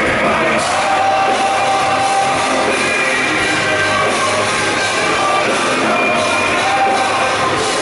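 Live rock band playing at full volume, electric guitar among the instruments, with a few long held notes and no breaks.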